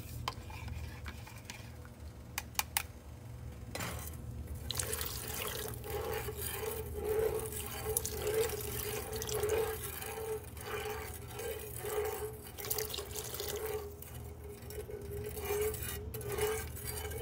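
A thin stream of flour-and-broth slurry pouring into a pot of chicken broth while it is stirred, with trickling and splashing liquid and a pulse repeating about every half second. A few sharp clicks, about two and a half seconds in, are heard before the pouring starts.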